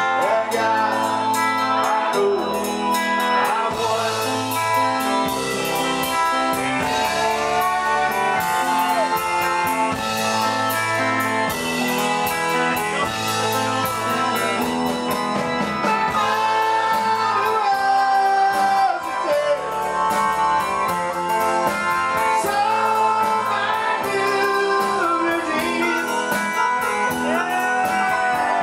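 Live rock band playing a slow minor-key song: electric guitar, keyboards, bass and drums, with a lead vocal singing over them.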